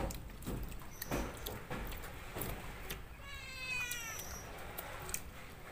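A cat meowing once, a drawn-out call of about a second starting about three seconds in and falling slightly in pitch, over scattered light clicks from the table.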